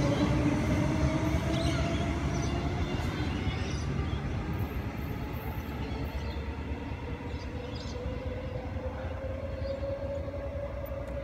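Queensland Rail EMU electric train, two units coupled, pulling away from the platform. Its rumble and wheel noise fade steadily as it moves off, with a thin whine that rises slightly in pitch as it gathers speed.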